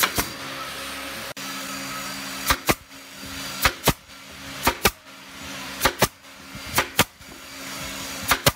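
Pneumatic nail gun firing nails into a wooden bookcase frame, about seven shots, each a sharp double snap, most of them about a second apart after a pause early on. A steady machine hum runs underneath.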